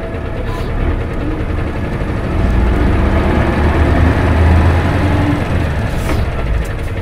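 Cabin running sound of a 1996 Isuzu Cubic KC-LV280N diesel city bus. The engine drones low and grows louder from about two and a half seconds in, then eases off near the end.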